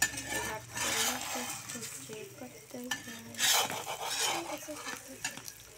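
Metal spatula scraping against a flat griddle (tawa) around the edge of a frying egg omelette, in two spells about a second in and at about three and a half seconds, over a light sizzle of the egg.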